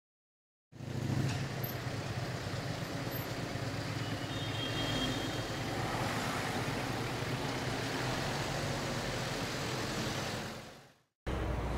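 City street traffic: a steady rumble of passing cars and trucks, fading out near the end.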